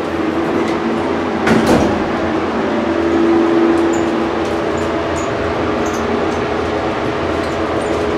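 Traction elevator cab riding, with its ventilation fan running: a steady whir and hum throughout, the hum swelling briefly about three seconds in. A short clunk about a second and a half in.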